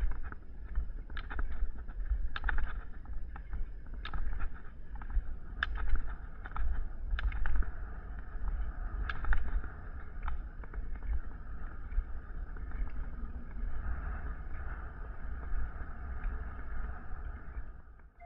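Rollerski wheels rolling on asphalt, with sharp clicks of pole tips striking the pavement, often in pairs, every second or two, under low wind rumble on the microphone. The clicks stop after about twelve seconds, leaving a steady rolling hiss.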